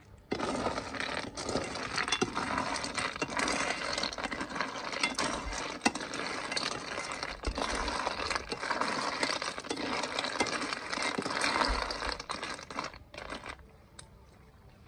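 Whole snails in their shells rattling and clinking against a stainless steel wok as they are stir-fried with a metal spatula, over a hiss of sizzling; it starts just after the beginning and dies away about 13 seconds in.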